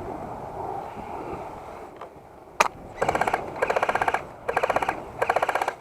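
Airsoft rifle firing four short full-auto bursts, each a rapid even rattle of about half a second, starting about three seconds in after a single sharp click; before that, faint rustling.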